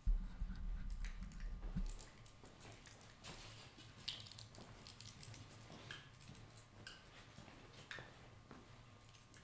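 Low rumble for about the first two seconds, then faint scattered small clicks and rustles.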